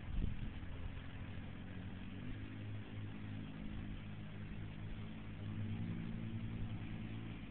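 A vehicle engine running steadily, its pitch shifting slightly about two seconds in.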